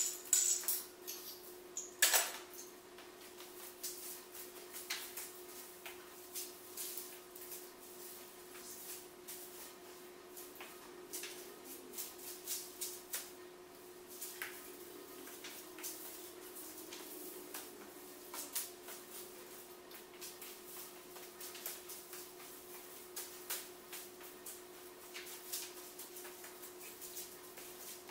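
Loose unravelled VHS tape crinkling and crackling in scattered small bursts as it is handled and trodden on, over a steady hum in the room.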